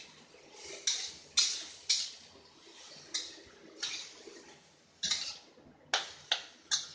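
Metal spatula scraping and knocking against a metal wok as broccoli and carrots are tossed, in about nine irregular strokes.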